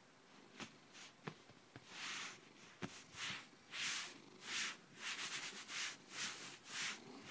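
A cat's fur and paws rubbing and brushing against the phone's microphone at close range. First come a few sharp clicks, then from about two seconds in a steady run of swishes, roughly one and a half a second.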